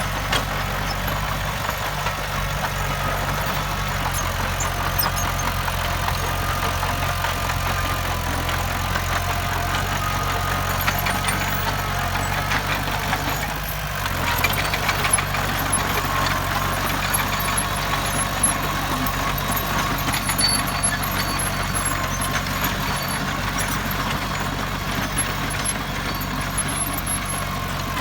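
Heavy diesel engine of earthmoving machinery running steadily, with a brief dip about halfway through.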